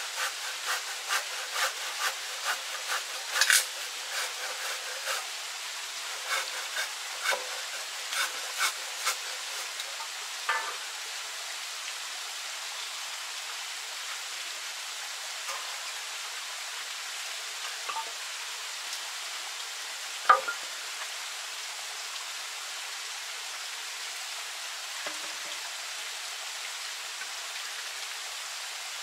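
Machete chopping bamboo: a quick run of sharp strikes, two or three a second, for about the first ten seconds. After that come a few scattered knocks, one sharp one about two-thirds of the way through, over a steady hiss.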